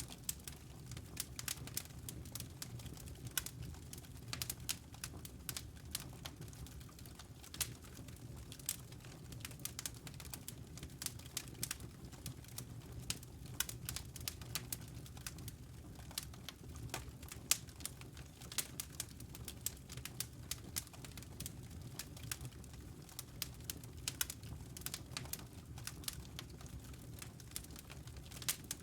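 A fire crackling in a fireplace: irregular sharp pops and snaps, several a second, over a low steady rumble of the flames.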